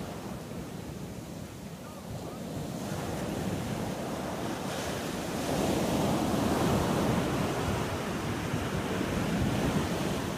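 Sea surf breaking and washing on a sandy beach, with wind buffeting the microphone. The rush of surf grows louder about halfway through.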